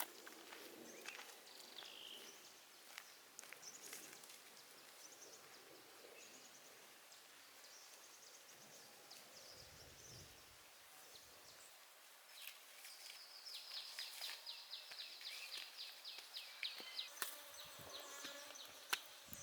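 Quiet outdoor ambience with a faint steady hiss. About two-thirds of the way in, an insect gives a rapid, high buzzing trill for about four seconds.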